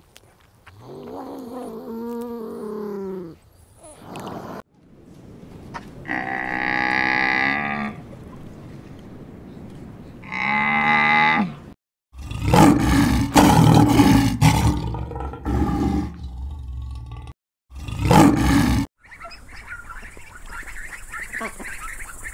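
A beaver giving several drawn-out, whining calls; then a lion growling and roaring loudly, with a short break; then ducklings peeping faintly near the end.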